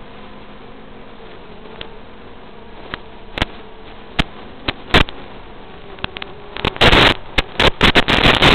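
Audio carried on an FPV quadcopter's analog video link: a faint buzzing hiss of the quad's motors on three-blade 5-inch props. From about three seconds in, sharp crackles and pops of radio static break in, coming thick and loud in the last two seconds as the video signal breaks up.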